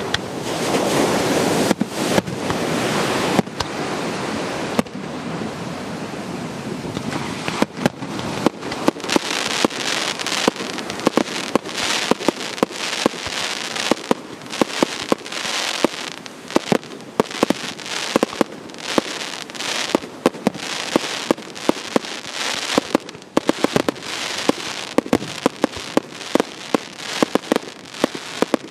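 Aerial fireworks display: shells launching and bursting overhead. A steady rushing noise in the first few seconds gives way, about eight seconds in, to a long run of sharp bangs and crackles, several a second.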